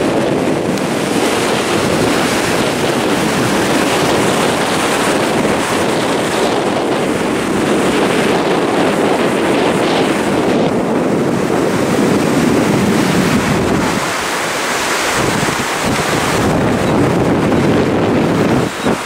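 Ocean surf breaking and washing through the shallows in a steady rush, with wind buffeting the microphone.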